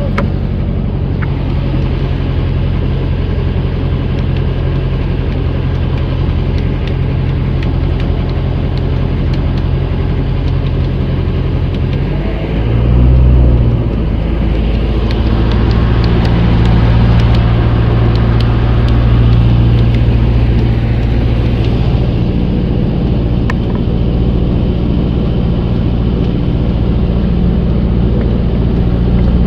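Outrigger fishing boat's engine running steadily under way. Its note shifts and swells briefly about twelve seconds in, then settles again.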